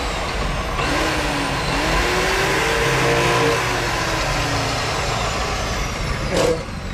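Motor vehicle engine running close by over a loud rush of noise, its pitch rising and falling as it revs, with a brief knock near the end.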